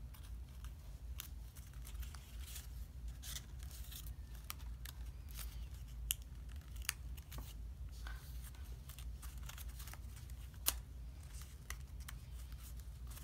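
Origami paper being creased and folded by hand: scattered small crackles and clicks of stiff paper, with a sharper snap near the end, over a steady low hum.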